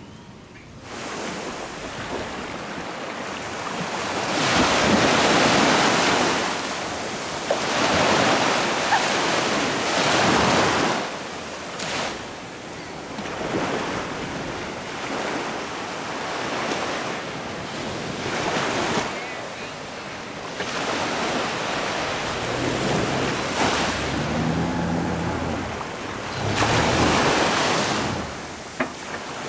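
Sea surf breaking and washing up the beach, rising and falling in long surges, with wind gusting over the microphone.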